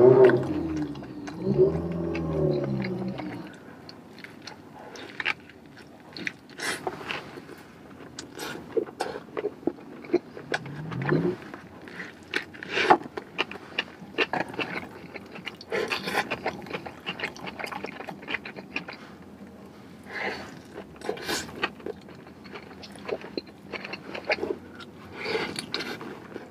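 Close-up eating sounds of a person chewing a cheeseburger and fries: scattered wet chews, crunches and small scrapes. A drawn-out hummed "mmm" fills the first few seconds.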